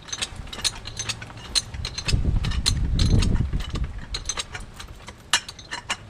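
Hi-Lift farm jack being lowered: repeated metallic clicks and clanks of its ratchet mechanism as the handle is worked. A louder low rumble runs for about two seconds in the middle.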